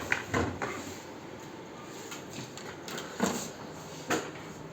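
A few short knocks and clatters of hard objects being handled, over a steady hiss: a small cluster at the start, then single knocks near three and four seconds in.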